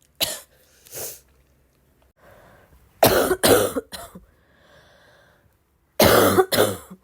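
A woman's congested, barky cough in bouts: two single coughs, a breath in, a run of three coughs, another breath, and two more coughs near the end.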